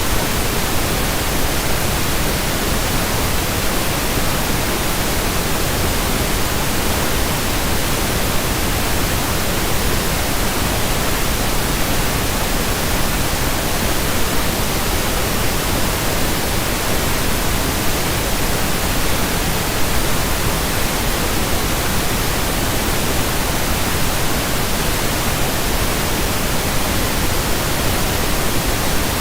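Pink noise: a steady, even hiss with no changes.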